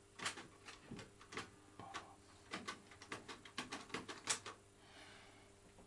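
Irregular string of light clicks and ticks from a Märklin model railway, then a faint steady hum near the end.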